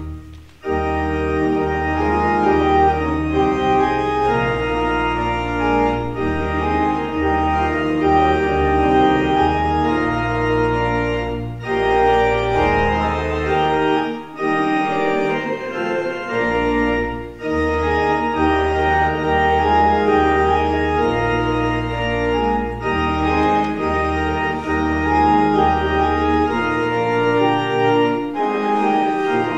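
Church organ playing sustained full chords over a moving pedal bass line, in phrases that break off briefly every few seconds.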